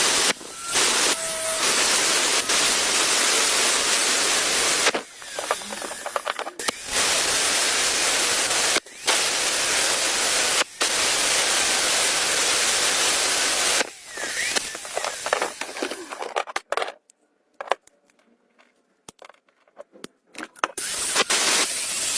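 Water spraying hard with a steady hiss, cutting off briefly several times and stopping for a few seconds near the end before starting again.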